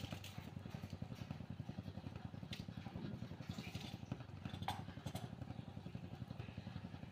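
Steel pot of water heating on a gas burner and coming up to the boil: a steady, low, fast-pulsing rumble with scattered small ticks and pops.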